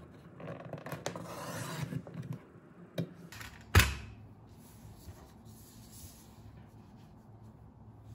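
Slide paper trimmer cutting a photo card: the blade carriage scrapes along the plastic rail for about two seconds. A click follows, then a sharp knock just before four seconds in, the loudest sound, and faint rustling after it.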